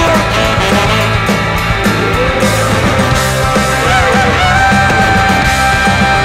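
Recorded rock-and-roll/jump-blues band music led by saxophones over a steady bass and drum beat; about four and a half seconds in, a horn holds one long note.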